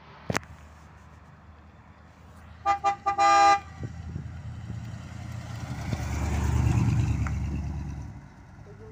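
Car horn sounded three times, two short toots and then a longer one. Then a red classic American convertible's engine rumbles low as the car drives past, swelling and fading away.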